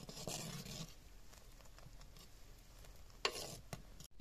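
A metal ladle stirring frothy, boiling mung dal in a clay pot, with a hiss of bubbling that is busier in the first second. There is a short, sharp scrape of the ladle about three seconds in.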